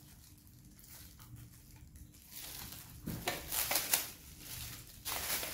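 Clear plastic bag crinkling as an electric mosquito racket is pulled out of it: faint at first, then bursts of crackly rustling from about three seconds in, loudest near the end.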